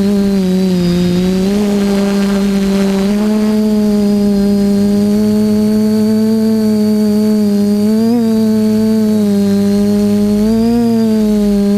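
TBS Discovery quadcopter's motors and propellers humming steadily, heard through the onboard camera's microphone. The pitch sags briefly near the start and rises in two short blips later on as the throttle changes.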